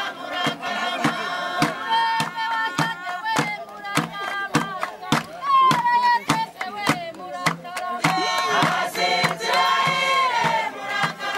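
A group singing together in chorus over a steady beat of sharp percussive strikes, about two a second.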